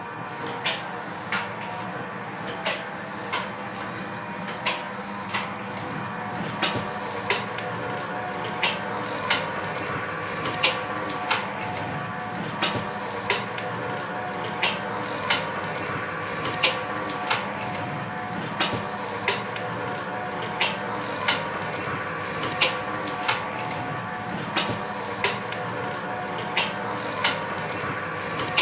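Automatic stick-sachet packing machine running: a steady motor hum with a sharp clack repeating evenly about every two-thirds of a second as the machine cycles.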